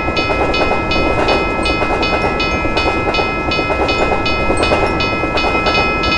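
Level-crossing warning bell ringing steadily at about three strokes a second while a train rumbles past over the rails.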